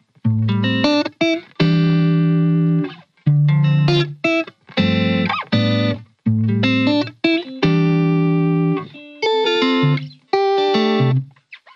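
Instrumental background music led by a guitar, playing short melodic phrases with brief pauses between them.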